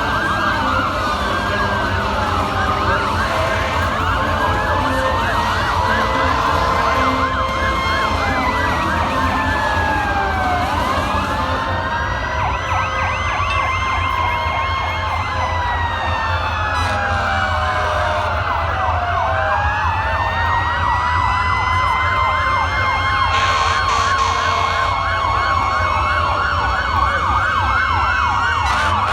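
Many fire and rescue vehicle sirens sounding at once, several slow wails rising and falling out of step with each other, with fast yelping warbles layered over them, above a steady low rumble.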